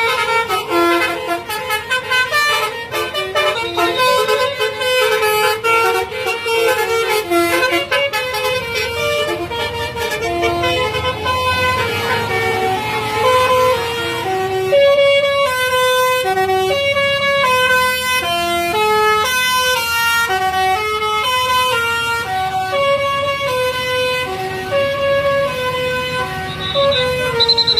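Indonesian bus 'telolet' musical air horn playing a tune, its notes changing pitch about every half second, over a running bus engine.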